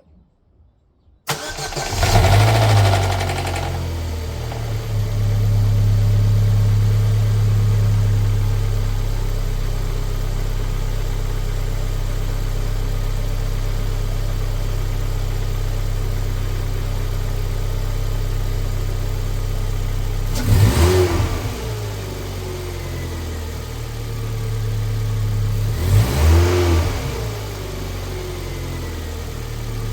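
Opel/Vauxhall Astra 1.6 petrol four-cylinder engine starting about a second in, surging and then settling into a steady idle. It is revved briefly twice later on, about five seconds apart. The owner reports a strange sound from this engine.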